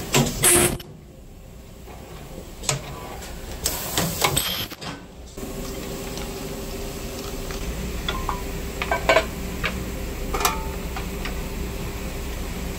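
Hand tools and small metal machine parts clicking and knocking several times, as a waistband-elastic joining machine is worked on with a screwdriver and hex keys. A steady low hum runs underneath.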